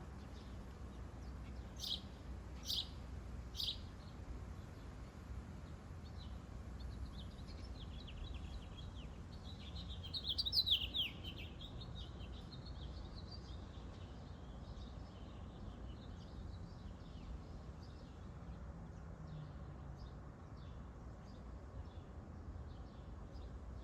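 Small songbirds chirping: three short sharp chirps about two seconds in, a louder burst of rapid twittering near the middle, and faint scattered chirps the rest of the time.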